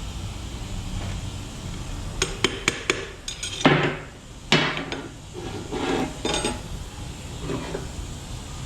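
Small metal engine parts clinking and knocking as they are handled: a few sharp clicks, then two louder ringing clanks about four seconds in, then more clatter.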